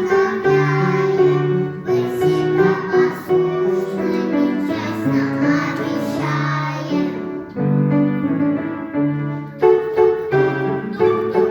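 A group of young children, about four to five years old, singing a children's song to instrumental accompaniment.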